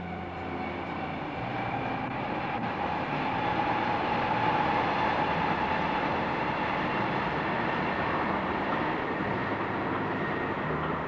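Passenger train approaching and passing close by: the rumble of wheels on the rails grows over the first few seconds and then holds steady as the coaches go past, with a thin high whine on top.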